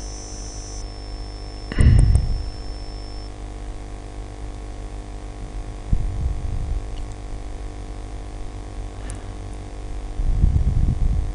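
Steady electrical mains hum in the recording, with a buzzy edge. It is broken by a few dull low bumps, about two seconds in, about six seconds in, and a longer one near the end.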